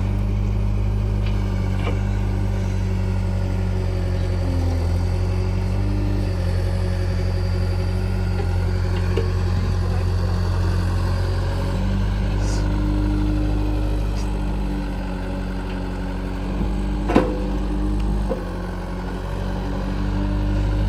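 Heavy diesel engine running steadily, its pitch stepping up and down a few times as the load changes. A single sharp knock sounds about 17 seconds in.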